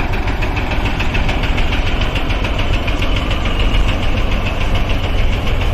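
Engine running sound for a toy cement mixer truck: a steady rumble with a fast, even rattle.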